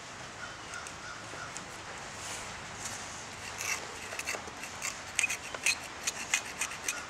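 Hoof pick scraping and clicking against a horse's hoof, picking out packed mud: a quick, irregular run of sharp scrapes that starts about halfway through, over a steady background hiss.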